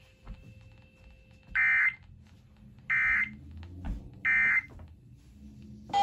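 Three short bursts of EAS digital data tones (the SAME end-of-message code) from a radio speaker, each about a third of a second long and about a second apart, marking the end of a relayed severe thunderstorm warning.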